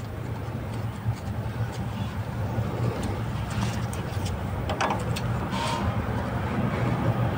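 A few faint metallic clicks from a brake pad retaining spring clip being worked into a disc brake caliper, over a steady low rumble that grows louder toward the end.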